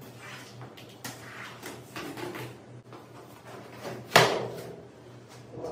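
Cardboard packing scraping and rustling while a flat-packed metal locker is unpacked, then one sharp knock about four seconds in, with a short ringing tail, as a painted metal side panel is gripped and lifted out of the box.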